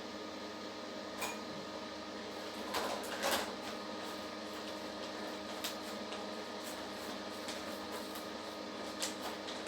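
Steady room hum with a few light clicks and knocks: one about a second in, a short cluster around three seconds in, and more near the end.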